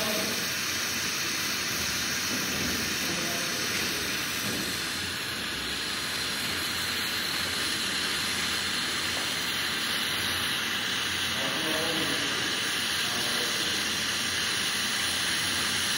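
Oxyhydrogen (HHO) welding torch flame burning with a steady, even hiss.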